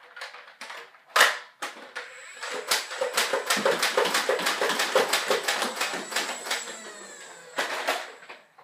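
Modified Nerf Demolisher flywheel blaster being revved and fired: a sharp click about a second in, then a steady high motor whine with rapid clicking about four times a second, the motor pitch falling away near the end, and a knock shortly before the end.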